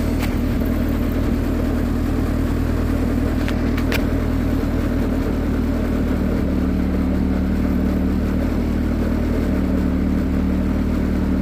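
Turbocharged Dodge Neon four-cylinder engine idling steadily while warming up, idling a little high. A couple of faint clicks come near the start and again about four seconds in.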